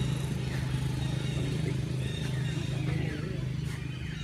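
A steady low motor hum, with faint high chirps over it.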